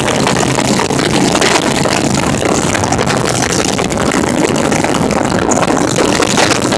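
Cruiser motorcycle's engine running steadily at highway speed, under a loud, even rush of wind on the microphone.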